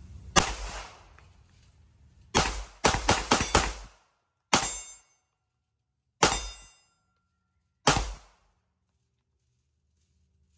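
Polymer80 (P80) Glock 19-pattern 9mm pistol with a threaded barrel being fired about nine times. There is one shot, a quick string of about five, then three slower, evenly spaced shots.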